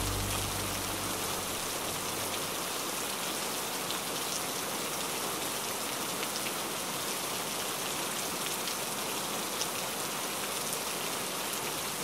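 Steady heavy rain, an even hiss dotted with a few sharper drop ticks. The last low notes of background music die away in the first second.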